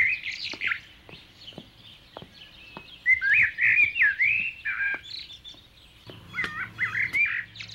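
Songbird singing outdoors in short whistled, slurred phrases, in three bouts with pauses between them.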